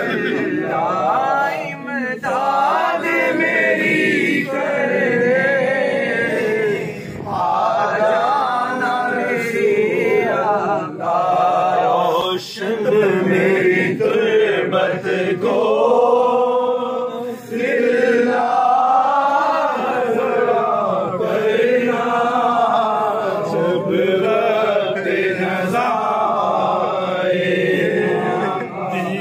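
Male voices chanting a devotional Urdu naat to a slow, wavering melody, with only brief pauses for breath.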